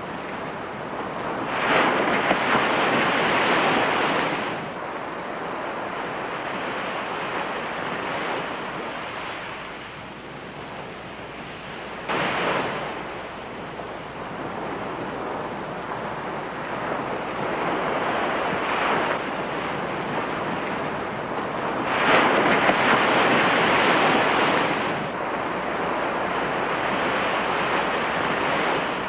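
Small waves breaking and washing up a sandy beach, the surf swelling and fading in surges. It is loudest about two seconds in and again about three-quarters of the way through.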